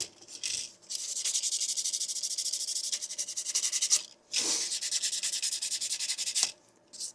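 Sandpaper rubbed in quick, short strokes over a 3D-printed plastic part, smoothing its rough edges. It comes in two spells with a brief pause about four seconds in.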